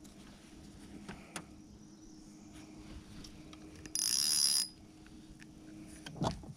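A small electric motor hums steadily and stops about six seconds in. A brief loud hiss comes about four seconds in, and a few knocks follow near the end.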